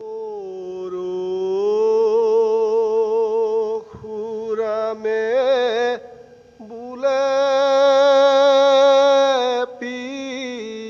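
Male voice singing an Assamese Dihanam devotional chant unaccompanied, drawing out long held notes with a slight waver in a few long phrases.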